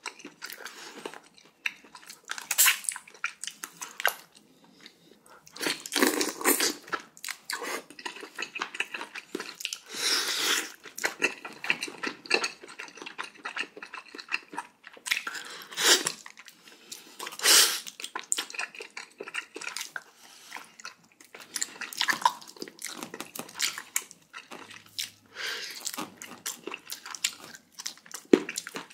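Close-miked eating: irregular chewing and crunching bites, as of cubed radish kimchi (kkakdugi), with a few louder bursts spread through.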